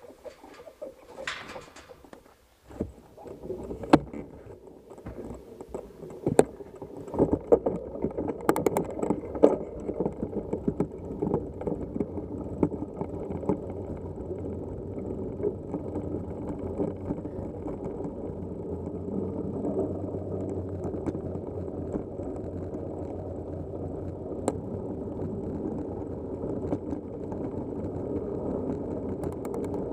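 Mountain bike rolling fast down a gravel dirt road: a steady rumble of tyres on loose dirt and the bike rattling, building up over the first several seconds as speed picks up. A few sharp knocks come as the bike hits bumps.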